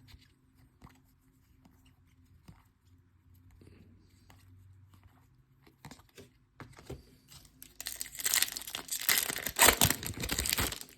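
Faint clicks and shuffling of cards being handled, then near the end a loud stretch of tearing and crinkling as a baseball card pack wrapper is ripped open.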